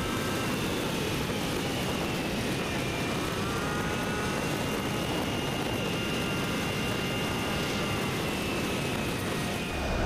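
Yamaha XMAX 300 scooter cruising at road speed, heard from the rider's seat: a steady rush of wind and road noise with a faint engine whine that drifts slowly up and down in pitch.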